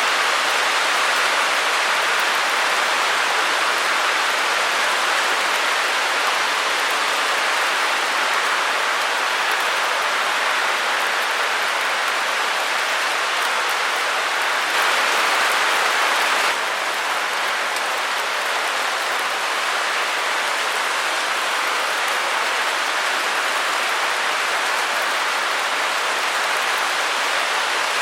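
Steady white noise: an even hiss with no pitch or rhythm, a little louder for a second or two about halfway through.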